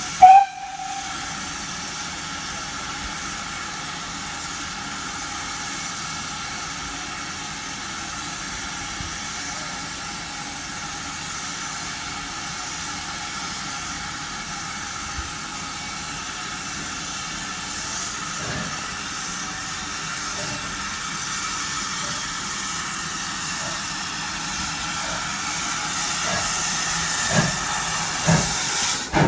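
Steam locomotive hissing steam steadily, slowly growing louder toward the end. A brief, very loud tone sounds right at the start, and a few sharp knocks come near the end.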